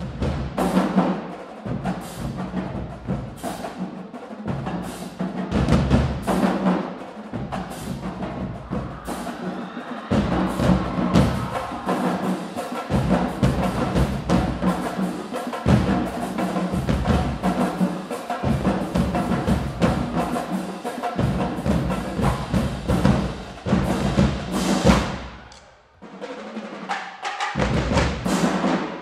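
Marching band drumline playing a cadence: bass drums booming under rapid snare-drum strikes in a driving rhythm, with a brief break about three seconds before the end before the drums come back in.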